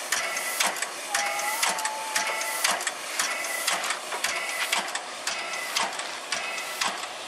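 JNR Class C62 steam locomotive C62 2 chuffing slowly and evenly, a sharp exhaust beat about every 0.6 seconds over a steady hiss, as it moves off hauling its train.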